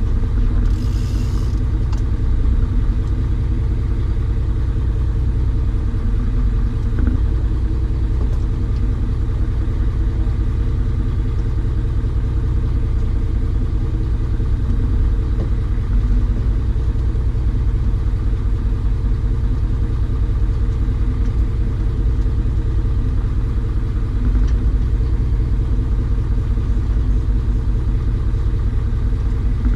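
An engine running steadily: a continuous low drone with an even hum. A short hiss is heard about a second in.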